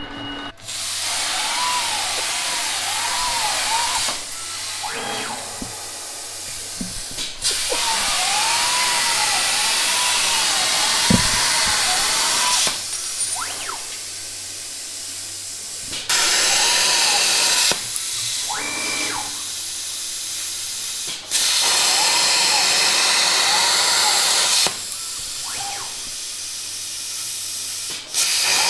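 Unimig Razor Cut 45 plasma cutter cutting steel sheet on a CNC plasma table: a loud hissing arc that starts and stops abruptly about five times, with a quieter rush of air between cuts. Through the cuts a whine rises and falls in quick arcs as the gantry's motors trace the round holes.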